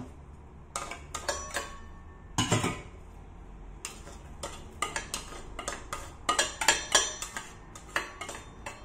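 Small stainless steel bowls and a plastic spoon knocking and scraping against the rim of a stainless steel pot as chopped vegetables are tipped into the water: a run of irregular clinks and scrapes, the loudest knocks about two and a half seconds in and again near the end.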